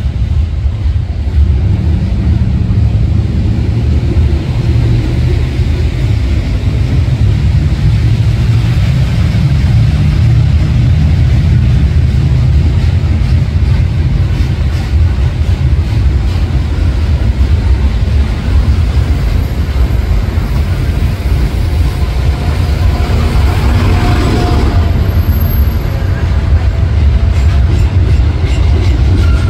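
Freight train cars rolling steadily past on a railway overpass: tank cars, a lumber-loaded centerbeam flat and hoppers, making a continuous low rumble of steel wheels on rail with some clickety-clack. About three-quarters of the way through there is a brief, brighter, louder stretch of wheel noise.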